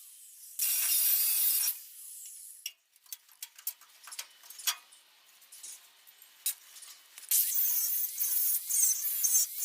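Angle grinder abrading rust off steel bodywork: a short loud grinding pass about a second in, light scraping and clicking in between, then grinding again from about seven seconds in.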